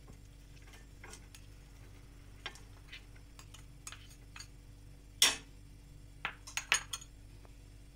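Light clinks and taps of a spoon against a small glass bowl as grated jaggery is knocked out of it into a pan, with one louder clink about five seconds in and a quick run of taps just after.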